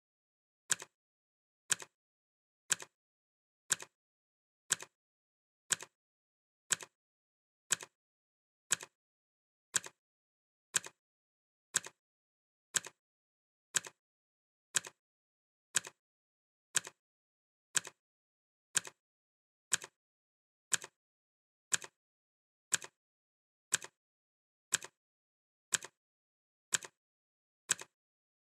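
Clock ticking once a second, each tick a sharp click followed by a fainter click just after it.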